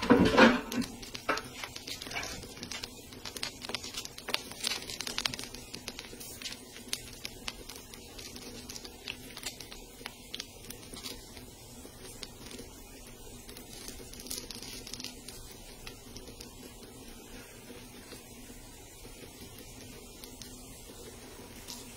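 Electric popcorn maker heating corn kernels in oil and melted chocolate while its stirring arm sweeps them around the pan: scattered ticks, crackles and sizzle over a low steady hum, with a louder rustle in the first second. The kernels are heating but not yet popping.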